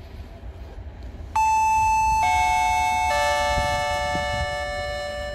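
Railway station public-address chime: three bell-like tones, each lower than the last, ringing over one another and slowly fading. It is the signal that a platform announcement is about to follow.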